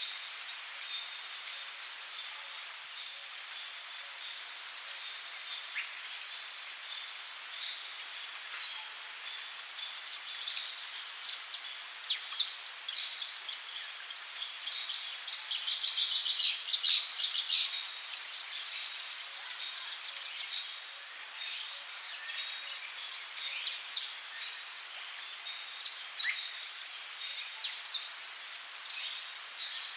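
Tropical forest ambience: a steady high-pitched drone of insects with birds calling over it, a run of quick chirping trills about a third of the way in and two pairs of loud, short, high calls, one near two-thirds of the way through and one near the end.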